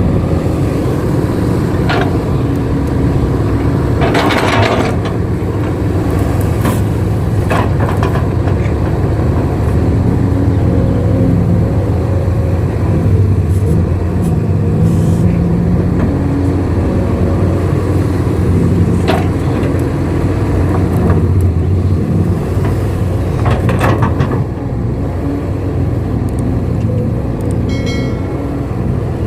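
Excavator's diesel engine running steadily under load while it works, with a few sharp knocks scattered through and a longer rush of noise about four seconds in.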